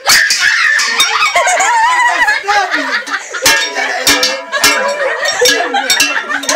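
A metal pot lid beaten by hand like a drum, sharp clanging strikes about twice a second, while women's high voices sing and shout along with it.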